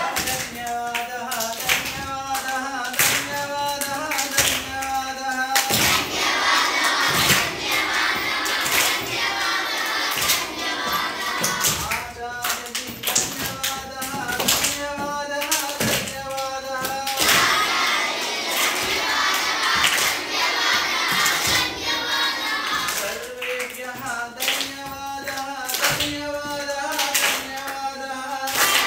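A group of children singing a Sanskrit song in unison, clapping their hands in time with the beat.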